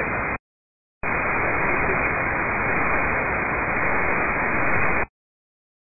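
Air traffic control VHF radio static heard over a scanner feed: a short tail of hiss stops just after the start, then about a second in a four-second burst of loud hiss opens and cuts off abruptly. It is the pilot's transmission reading back the take-off clearance, with no words audible through the static.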